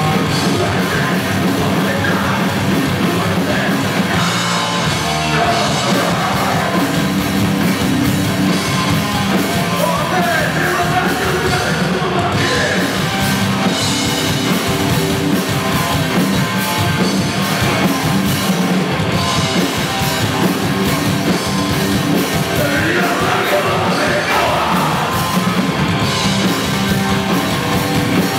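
Hardcore band playing live and loud: distorted electric guitars, bass and drums, with a vocalist shouting in places.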